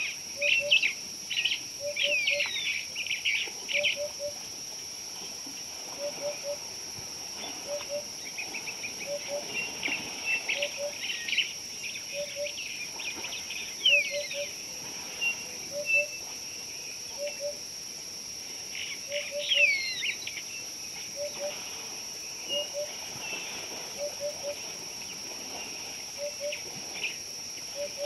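Wild birds chirping and trilling in scattered bursts, with a low two-note call repeated about once a second, over a steady high-pitched insect drone.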